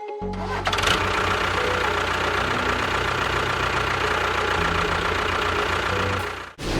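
An engine starting up about half a second in and running steadily, then cutting off abruptly near the end.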